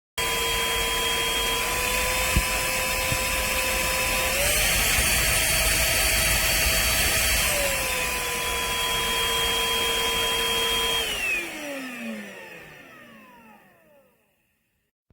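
Trucozie cordless stick vacuum's motor running with a steady whine. It steps up to a higher pitch about four seconds in and back down about three seconds later, then is switched off and winds down, its pitch falling as it fades.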